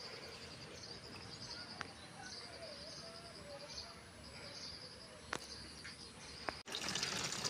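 Faint outdoor ambience of insects chirping, a steady run of short high-pitched pulses with a few light clicks. Near the end it cuts suddenly to louder running water splashing.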